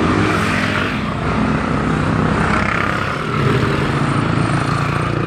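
Road traffic: motor vehicle engines running close by over steady road noise, one engine growing louder about three and a half seconds in as it passes.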